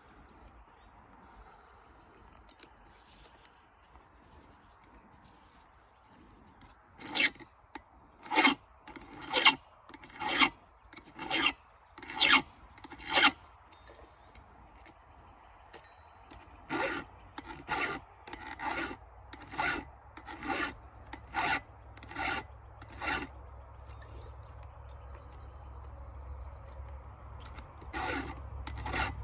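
Hand file rasping across chainsaw chain teeth, about one stroke a second. After a quiet start come two runs of strokes, the first louder, with a few more strokes near the end.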